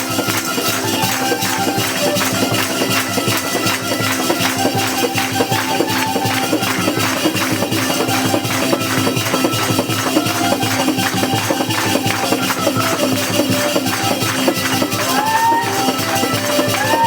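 Instrumental passage of a Hindi worship song: held melodic tones over a steady, fast beat of shaken percussion, with a few bending notes near the end.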